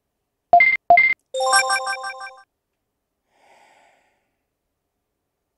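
Retro video-game menu sound effects: two short beeps of a cursor moving, then a bright electronic confirm chime of rapidly repeated notes that fades out, marking a save file being selected and loaded.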